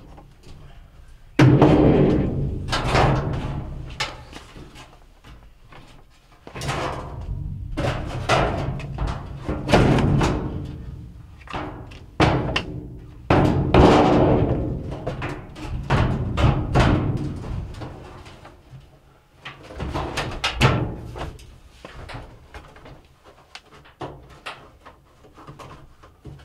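Sheet-metal washing machine cabinet being lowered, slid and tilted into place on the base: bumps, scraping and clanks with a low hollow ring from the metal panels, in several bursts with short pauses between.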